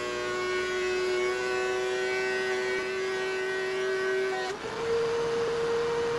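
DeWalt benchtop thickness planer planing a board, its motor and cutterhead giving a loud, steady whine under load. About four and a half seconds in, as the board clears the cutterhead, the whine jumps up in pitch and the motor runs free.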